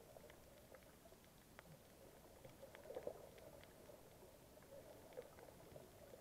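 Faint, muffled underwater ambience picked up by a submerged camera, with scattered small clicks and crackles and a slightly louder cluster about three seconds in.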